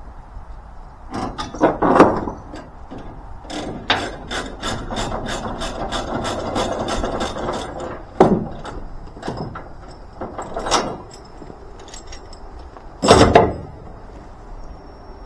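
Tie-downs being undone on a trailer: a ratchet clicking at about five clicks a second for several seconds, with separate knocks and clanks before and after.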